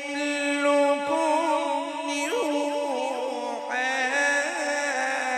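Male qari's melodic Quran recitation (tilawat) over a microphone and sound system: one voice holding long drawn-out notes, with rapid ornamental turns in the pitch partway through.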